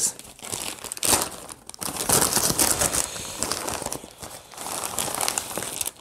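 Brown paper mailer being torn open and handled, and the belt in its clear plastic bag pulled out: irregular crinkling of paper and plastic, with a sharp crack about a second in.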